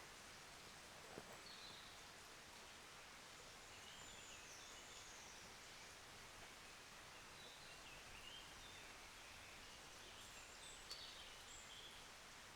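Near silence: quiet forest ambience with faint, scattered bird chirps and calls, and a couple of tiny clicks.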